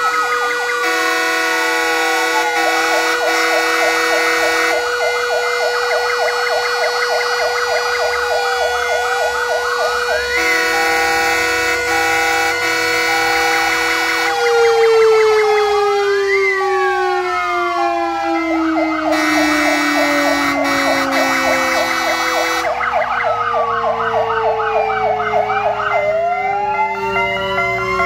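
Several fire-vehicle sirens sounding together as a commemorative tribute at 'W' hour, switching between a fast warbling yelp and a slow rising-and-falling wail. Under them a steady siren tone begins to wind slowly down in pitch about halfway through.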